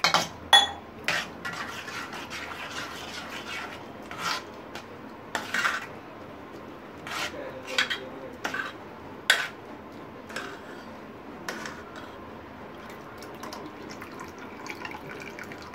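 A steel spoon clinks and scrapes irregularly against a stainless-steel bowl as freshly churned butter is worked in cold water to wash out the buttermilk. Near the end the milky wash water trickles from the bowl into another steel pot.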